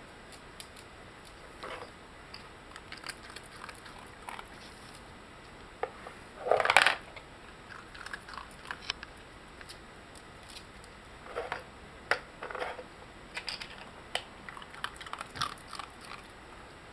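A West Highland white terrier nosing at a wooden puzzle board and a plastic dog puzzle box and chewing treats from it: scattered clicks, knocks and crunches, with a louder clatter about seven seconds in.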